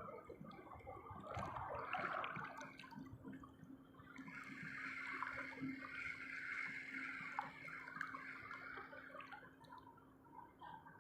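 Faint sea waves washing and sloshing against the shore, swelling about a second in and again for several seconds from about four seconds in.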